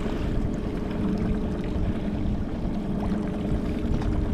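Boat engine running steadily at trolling speed, a constant low drone with a few even, steady tones.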